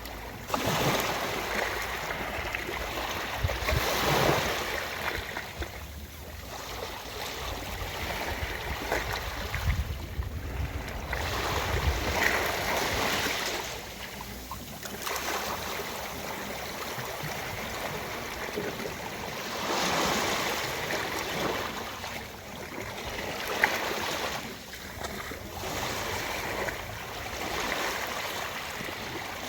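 Ocean waves washing onto a beach, the surf swelling and falling back every few seconds. A single brief click about three-quarters of the way through.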